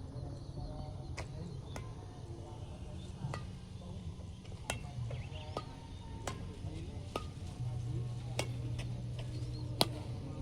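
Badminton racket strings striking a shuttlecock in a rally, sharp hits about once a second, over a low steady hum that swells near the end.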